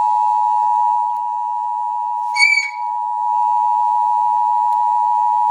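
Emergency Alert System two-tone attention signal: two steady tones sounding together, the 853 Hz and 960 Hz pair that warns that an alert message follows. A short high beep cuts in about two and a half seconds in.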